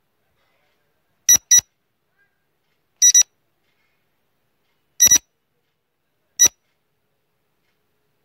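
Short electronic beeps, some in quick pairs, sounding about every one and a half to two seconds with silence between: a quiz countdown timer's sound effect.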